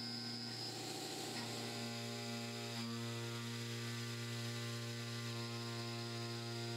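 CNC milling machine's spindle and small end mill cutting 40Kh steel: a steady humming drone made of several pitched tones. A high whine drops out a little under a second in.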